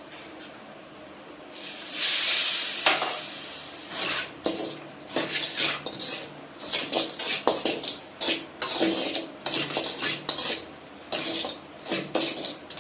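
Water hitting a hot pan of roasted grated coconut and sugar hisses loudly for about a second, then a spatula scrapes and clinks against the pan in quick, repeated strokes as the mixture is stirred.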